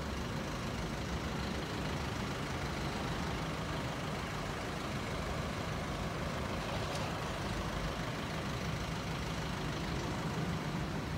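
Heavy container truck's diesel engine running low and steady, with a brief tick about seven seconds in.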